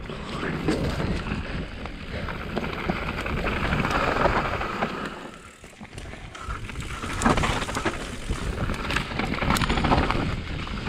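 Specialized Enduro mountain bike descending a dirt trail: tyre noise and wind on the microphone, with the chain and frame rattling in sharp clicks over bumps. It goes quieter for a moment about five and a half seconds in, then the rattling picks up again.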